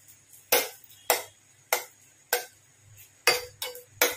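Utensil knocking against a nonstick pan while stirring melting butter: a run of sharp separate knocks, roughly one every half second to second, some with a short ring.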